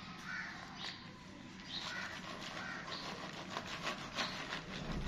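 Light rustling and scattered soft taps of hands picking over moringa flowers on a woven bamboo tray, with a few faint bird chirps.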